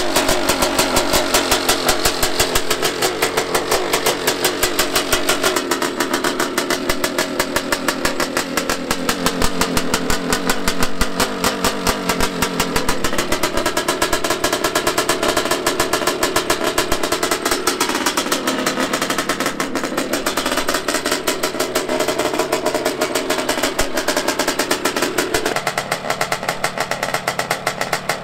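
Zabel ZM29 700cc two-stroke engine running in a dirt bike, a fast, even firing beat, its speed drifting up and down a few times.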